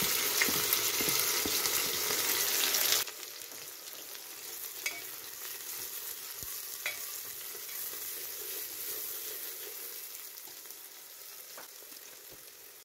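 Sliced onions sizzling in hot oil in an aluminium pressure cooker as they are tipped in and stirred with a metal spoon. The sizzling is loud for about three seconds, then drops abruptly to a quieter steady sizzle with a few light clicks, and fades slowly near the end.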